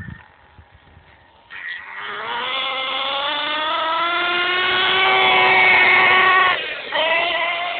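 HPI Bullet 3.0 nitro monster truck's .18-size nitro engine revving out as the truck accelerates. It is faint at first, then a high engine note comes in about a second and a half in and climbs in pitch. Near the end it lifts off briefly and picks straight up again.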